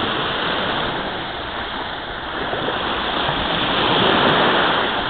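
Steady rushing beach noise of sea surf and wind, swelling a little about three to four seconds in.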